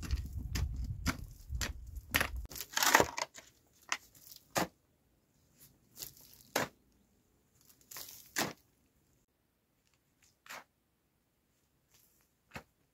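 A mattock chopping into dry, stony soil. Each stroke is a short crunchy strike with crumbling earth. The strokes come quickly over a low rumble for the first couple of seconds, then singly, about one to two seconds apart.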